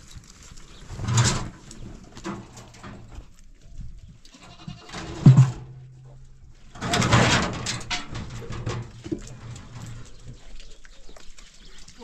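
A penned flock of goats and sheep bleating: several separate calls, the loudest about five seconds in.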